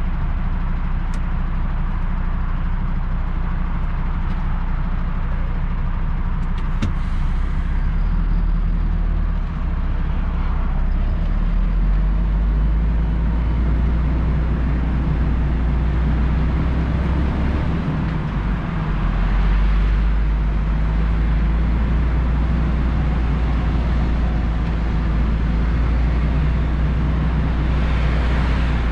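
MAN TGX truck's diesel engine running as the truck drives at low speed, heard from inside the cab as a steady low drone, with two brief dips in the engine sound about a third and two-thirds of the way through.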